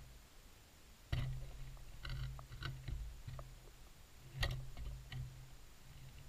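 Scattered clicks and knocks recorded underwater over a low hum. A sharp knock comes about a second in, a cluster of clicks follows, and another sharp one comes past four seconds.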